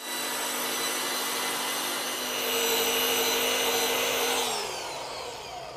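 Small electric car polisher with a foam pad running at steady speed as it polishes fresh clear coat. Its motor starts at once and gets louder for a couple of seconds in the middle, then falls in pitch as the machine spins down near the end.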